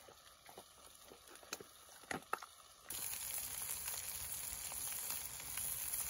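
A dog crunching dry kibble from a metal pan: scattered small crunches and clicks. About three seconds in, a steady sizzling takes over. It comes from a foil packet of hamburger and vegetables cooking over a Flame King propane fire pit, with grease running down into the vegetables.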